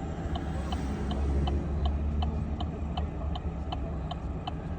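Vehicle turn-signal indicator clicking steadily, about three clicks a second, over the low hum of the engine idling inside the cab.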